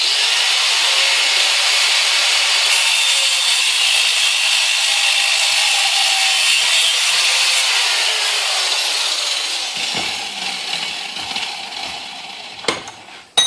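Power grinder cutting and grinding a steel bolt, a loud steady shriek of abrasive on metal that fades away over the last few seconds as the tool winds down. Two sharp clicks come near the end.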